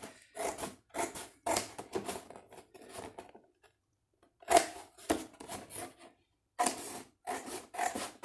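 Scissors cutting through a cardboard cereal box: a run of short snips, about two a second, with a pause of about a second a little before halfway.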